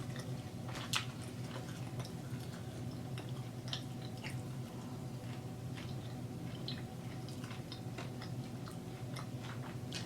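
Close-up chewing and biting of dry-rub fried chicken wings: many small, irregular crunchy and wet clicks over a steady low hum.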